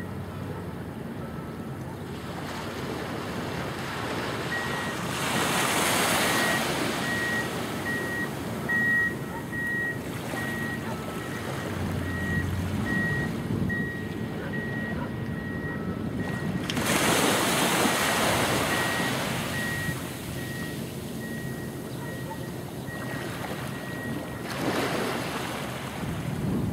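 Wind gusting on the microphone over a steady wash of small waves, the gusts rising three times. Through most of it a distant vehicle's reversing beeper sounds a steady high beep about twice a second.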